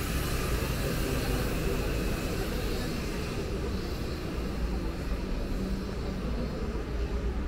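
Busy city street: a steady rumble of traffic noise.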